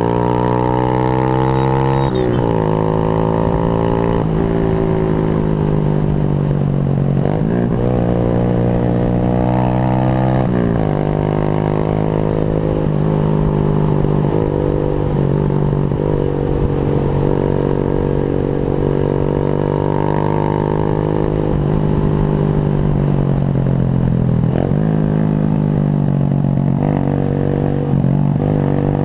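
Motorcycle engine under way, heard from a helmet camera. It climbs in pitch and drops sharply at each upshift, several times in the first ten seconds, then runs steadier with a few brief dips, over wind rumble on the microphone.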